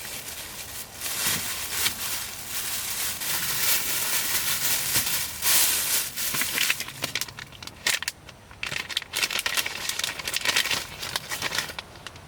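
Crinkling and rustling from something being handled, with many small clicks. It is dense for the first seven seconds or so, drops away briefly, then comes back in scattered bits.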